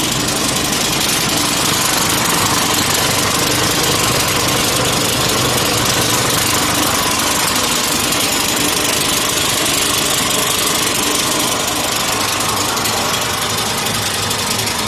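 A 150 kg/h copper wire recycling machine running, a loud, steady, dense mechanical noise with a low hum under it.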